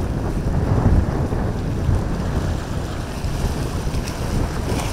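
Wind buffeting the microphone over the wash of waves and boat engines running through the inlet's surf.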